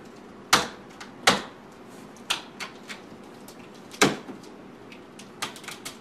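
A knife working at a plastic packing strap on a cardboard box: irregular sharp clicks and snaps, the loudest about half a second, a second and a quarter and four seconds in, and a quick cluster near the end. The knife is too dull to cut the strap.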